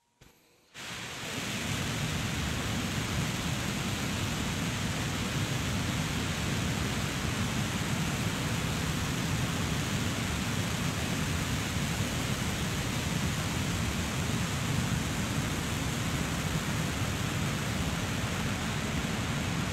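Relativity Space's 3D-printed rocket engines firing in a static-fire test: a steady rushing noise that comes on suddenly about a second in and holds even.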